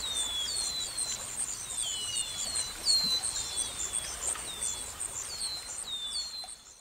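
Nature ambience: insects chirping in a steady high pulsing chorus, with a bird giving short downward-sliding chirps every half second or so. It fades out near the end.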